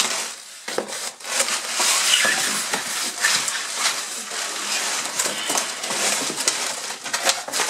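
Cardboard scraping and plastic packing straps and wrap rustling and crinkling as hands pull packing material out of a cardboard shipping box, with many small clicks and knocks. It starts a little under a second in and goes on steadily.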